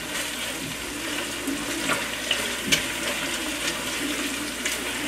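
Tomato paste and herbs sizzling gently in oil in a stainless steel pan, with a flat wooden spatula scraping and knocking against the pan a few times as it stirs.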